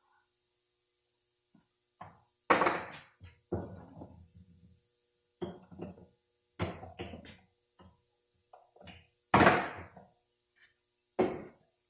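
Snap ring and tools clicking and knocking against a Dodge 46RE transmission's metal parts, an irregular series of about eight sharp metallic knocks, the loudest about two and a half and nine and a half seconds in, as the snap ring refuses to seat.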